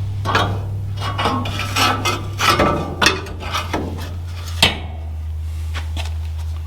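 Metal parts and tools clanking and clinking as a steel bumper mount is handled and fitted to a truck frame, with sharp metallic knocks, the loudest about three seconds and four and a half seconds in. A steady low hum runs underneath.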